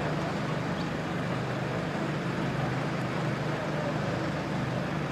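Steady low engine hum over a background of noise, holding one pitch without revving or passing cars.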